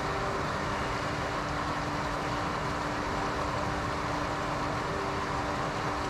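Steady rushing of water from a river weir pool, with a faint steady hum underneath.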